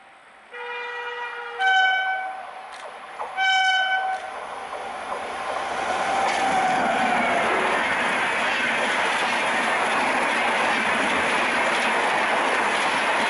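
Indian Railways WAP-7 electric locomotive's horn: a lower note, then two louder, higher blasts. Then the express train passes close at speed, a rising rush of wheel and rail noise with clickety-clack that stays loud and steady.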